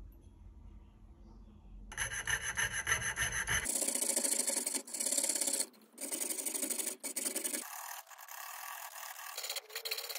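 A jeweler's saw blade cutting through a diecast metal toy-car body with fast rasping strokes. The sawing starts about two seconds in and runs in short runs with a few brief breaks.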